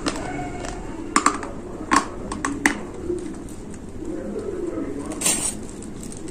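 Dry gray clay lumps being bitten and crunched, a handful of sharp, crisp cracks in the first three seconds, with a low steady background sound under them.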